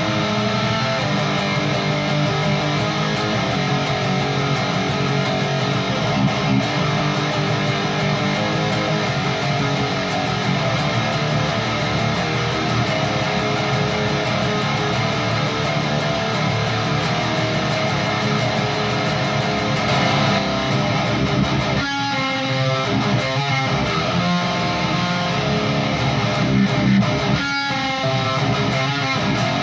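High-gain distorted electric guitar playing metal riffs through a Peavey 6505 II tube amp driven by a single-knob boost/overdrive pedal. The tone is gritty with crisp, biting highs and little low-end weight. The riff breaks off briefly twice near the end.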